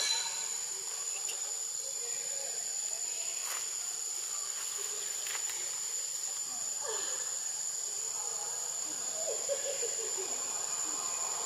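Steady high-pitched drone of insects, one unbroken tone with a hiss around it.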